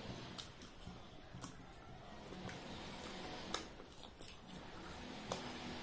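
Quiet eating sounds: a few scattered soft clicks and crunches as fried pakoras are picked from ceramic plates and bitten, over a faint steady room background.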